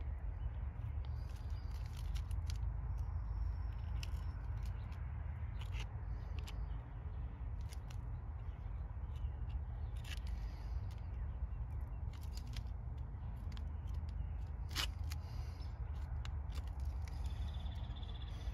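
Gloved fingers smoothing sealing paste over a crack in a concrete wall, giving scattered scraping clicks over a steady low outdoor rumble.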